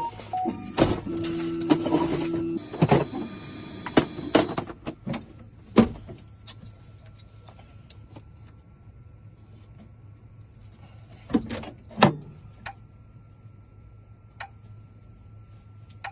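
Key-cutting machine's motors whirring in steady runs for the first four or five seconds while a replacement 2006 Ford Mustang key is cut. After that come scattered sharp clicks and taps of the key and machine being handled.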